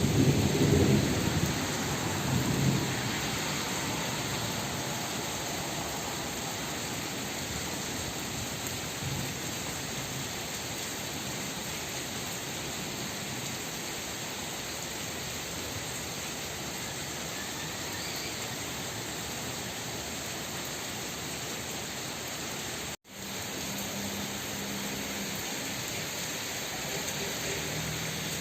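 Heavy rain falling with a steady hiss, with a deep rumble of thunder during the first couple of seconds.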